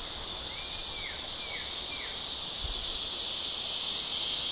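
Steady high-pitched chorus of insects, with a bird giving three short falling whistled calls between about half a second and two seconds in.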